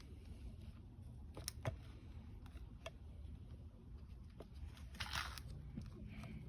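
Quiet handling sounds of parts being worked on by hand: a few light clicks and taps, and a brief rustle about five seconds in.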